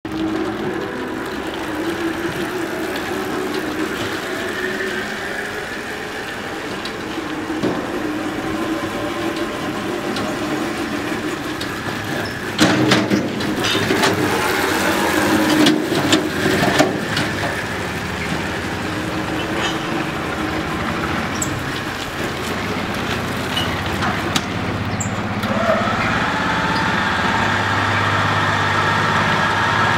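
Engine of a three-wheeled 2-ton mini dumper running as it is driven, with a spell of clattering and knocks in the middle. Near the end the engine note rises and holds at a steadier, higher pitch.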